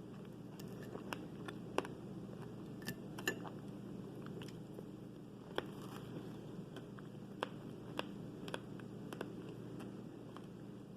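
Close-miked eating sounds: fruit being bitten and chewed, with scattered sharp crunches and wet mouth clicks over a steady background hiss.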